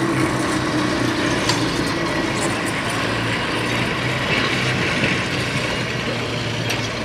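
1915 St. Louis Car Company single-ended streetcar running past on its rails: a steady rolling rumble with a low hum and a few sharp clicks, easing slightly as it moves away.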